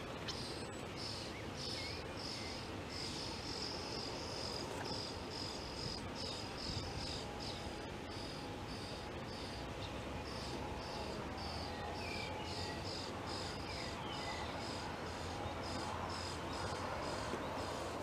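Common starling chicks in a nest under the roof eaves screeching for food: a long run of short, high-pitched calls repeated rapidly over a steady background noise. It is begging set off by a parent bird landing at the nest with food.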